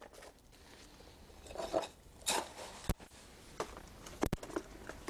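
A hand scoop scraping and crunching through fresh concrete in a metal pan, with a few sharp clicks and knocks of the molds and tools.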